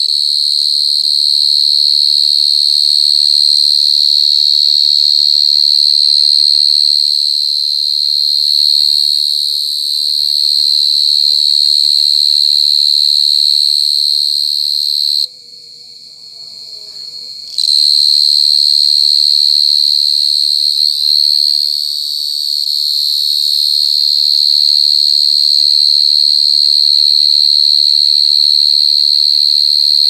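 Gangsir cricket (Brachytrupes portentosus, a large burrowing cricket) calling: a very loud, continuous high-pitched trill. About halfway through it stops for about two seconds, then starts again.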